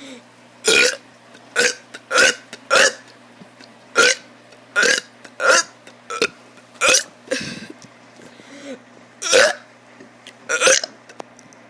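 A child burping over and over: about a dozen short burps, each well under a second long, coming roughly half a second to a second apart.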